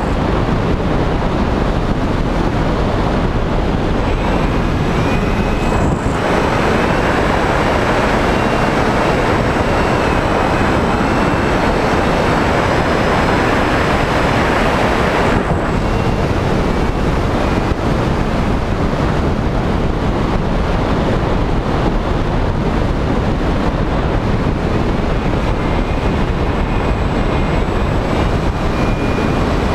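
Steady wind rush over the onboard camera of a Skywalker FPV RC plane in flight, with the faint whine of its electric motor and propeller shifting in pitch a few times.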